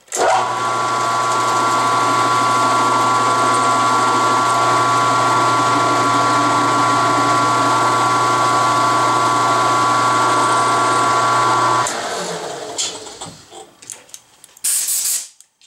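Mill-drill motor starting and running steadily with a low hum and a high whine, its two-flute end mill plunge-cutting a slot into a cast-iron lathe saddle. The motor shuts off about twelve seconds in and winds down, and a short hiss follows near the end.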